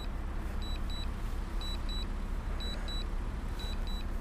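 Drone remote controller sounding its return-to-home landing alert: a short, high double beep repeating about once a second, over a steady low rumble.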